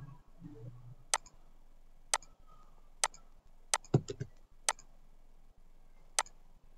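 Computer mouse clicking: about seven sharp single clicks at irregular gaps of roughly a second, with a quick cluster of clicks about four seconds in.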